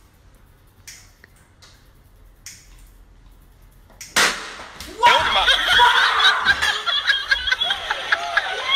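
A few faint knocks, then a sharp bang about four seconds in, followed by loud excited voices and laughter.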